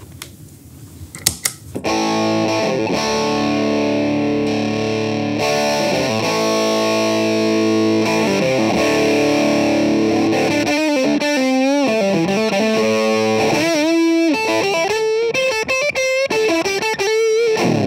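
Electric guitar played through a Beetronics Royal Jelly overdrive/fuzz blender set midway between overdrive and fuzz. After a couple of clicks, distorted chords ring for several seconds, then a single-note lead line with bends and vibrato.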